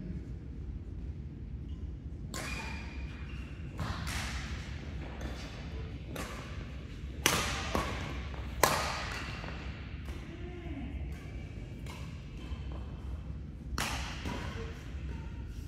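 Badminton rackets striking a shuttlecock in a rally: a string of sharp cracks a second or two apart, the loudest two about seven and eight and a half seconds in, then a pause before one more hit near the end. A steady low hum runs underneath.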